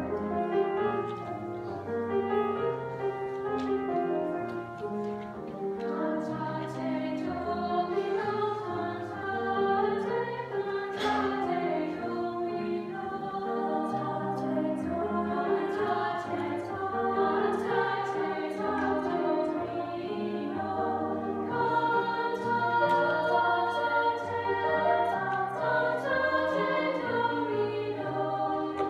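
A vocal ensemble singing a canon, several voices overlapping in held, stepwise-changing notes. The sound fills out with brighter upper voices about three quarters of the way through.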